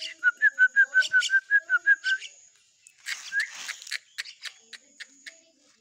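Common myna chick giving a fast run of short, squeaky begging calls, about eight a second, for about two seconds. A brief harsh rasp follows about three seconds in, then a few scattered clicks.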